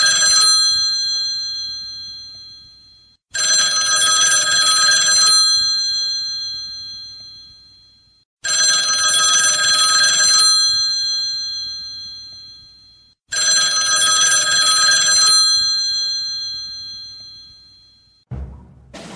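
Electric bell ringing in repeated bursts: each one buzzes for about two seconds and then rings away, returning about every five seconds, three times over. A few heavy thumps come near the end.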